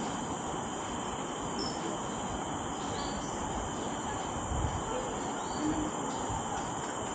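Steady high-pitched drone of tropical forest insects, with a few faint short chirps over a low even background noise.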